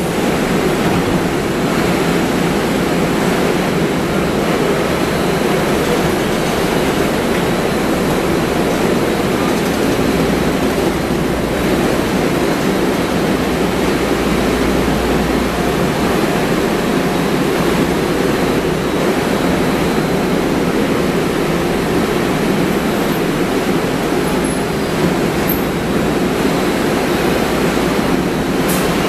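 MARTA rapid-transit train standing at an underground station platform, its equipment running as a loud, steady noise that does not change.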